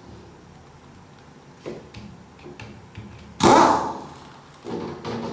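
Metal transmission parts and tools handled on a workbench: a few light clicks, then a loud clank a little past three seconds in that dies away quickly, and a shorter rattle near the end.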